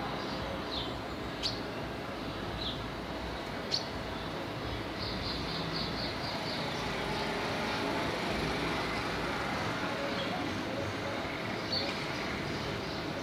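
Steady city street traffic noise that swells a little near the middle, with birds chirping in short repeated series over it and two sharp clicks in the first few seconds.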